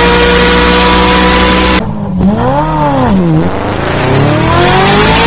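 Sport motorcycle engine held at high revs with a steady high note. About two seconds in the sound cuts abruptly to a rev that rises and falls once, then the engine's pitch climbs steadily as it accelerates.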